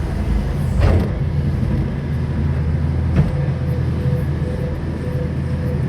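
Excavator diesel engine running steadily under digging load, with a brief knock about a second in and another a little past three seconds. A faint steady whine follows the second knock.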